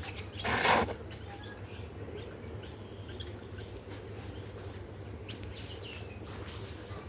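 A waterhen bathing: a brief burst of splashing and wing-flapping about half a second in, followed by faint short bird chirps.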